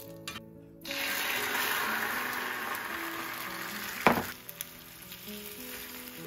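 Beaten egg hits a hot, oiled iron tamagoyaki pan and sizzles, loud at once and then slowly dying down as the egg sets. A single sharp knock comes about four seconds in.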